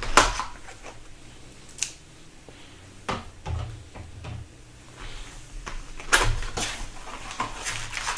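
A 2015/16 Upper Deck Series 1 Hockey card box being unwrapped and opened by hand: its plastic wrapper torn off and the cardboard box and foil card packs handled. A few separate sharp snaps and taps, then denser crackling handling over the last couple of seconds.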